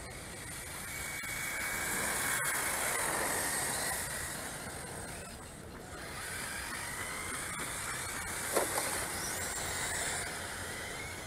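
Radio-controlled model cars running on brick paving: a high whine with hiss that swells and fades as they speed up and pass. A short sharp clatter about eight and a half seconds in.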